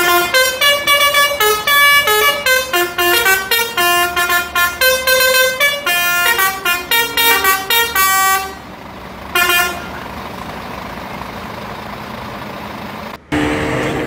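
Lorry's multi-tone 'telolet' (basuri) musical horn playing a quick tune of short chord-like notes for about eight and a half seconds, then one more short blast about a second later.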